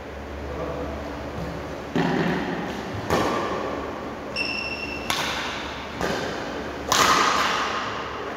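Badminton rackets striking a shuttlecock in a doubles rally: five sharp hits about a second apart, each echoing in the hall. A brief high squeak comes midway.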